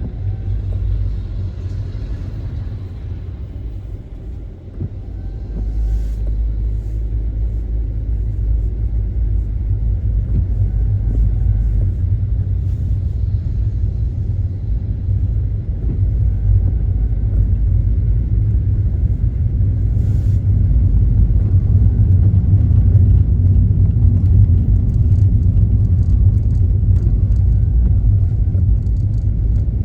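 Car driving, a steady low rumble of engine and road noise that swells about five seconds in and stays strong.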